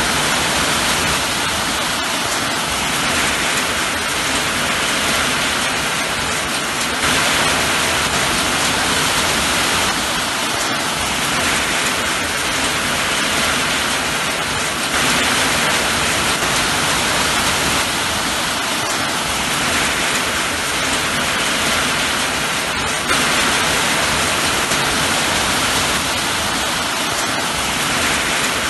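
Steady rain, an even hiss without distinct drops, with small jumps in level about every eight seconds.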